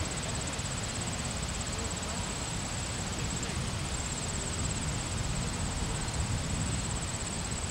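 Outdoor field ambience: a steady low rumble of wind on the microphone under a continuous high, pulsing insect trill.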